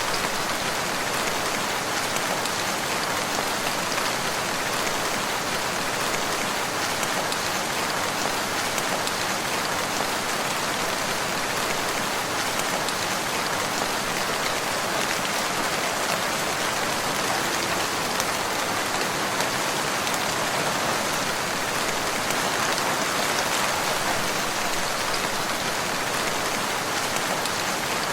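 Steady, heavy rain falling, a dense, even hiss of raindrops with no thunder.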